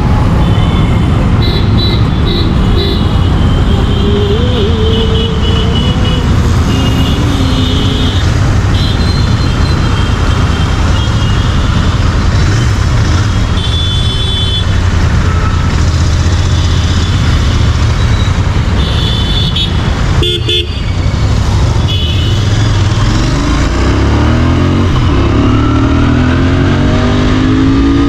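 Royal Enfield Interceptor 650's parallel-twin engine running steadily at low revs, with other vehicles' horns tooting several times. Near the end the engine revs up, its pitch rising as the bike accelerates.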